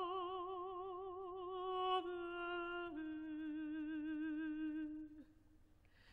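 Soft, slow solo music: a single melodic line of long held notes with vibrato, stepping down in pitch twice and fading out with a slight downward slide about five seconds in.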